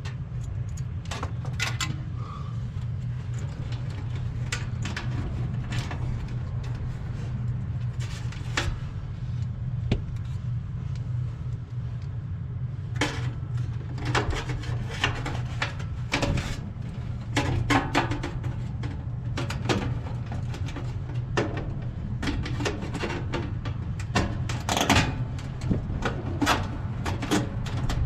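Irregular clicks, taps and rattles of hand work on wiring, connectors and tools, busier in the second half, over a steady low rumble.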